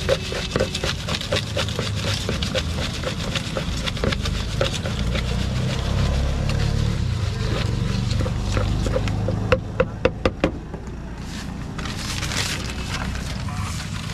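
Puffed rice being mixed by hand with a spoon in a plastic mug: quick rhythmic scraping and clatter, about three strokes a second. Near the middle the stirring stops with a few sharp knocks.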